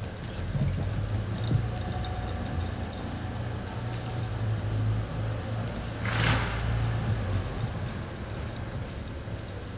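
Horse loping on arena dirt, its hoofbeats muffled, over a steady low hum that stops about two seconds before the end. A brief rush of noise just after six seconds in.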